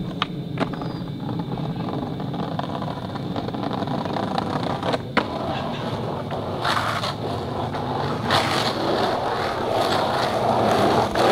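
Skateboard wheels rolling steadily over asphalt. There are a couple of clacks near the start, a sharp clack about five seconds in, and louder scuffing surges in the second half as the rider carves down the road.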